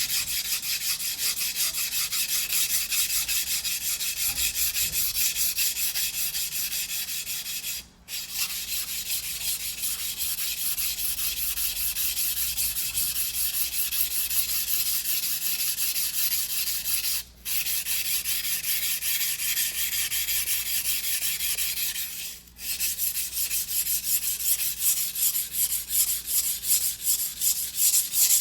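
A white #2 carbon steel yanagiba blade being stroked back and forth by hand on a wet whetstone: a steady run of quick, even scraping strokes. The strokes stop briefly about 8, 17 and 22 seconds in.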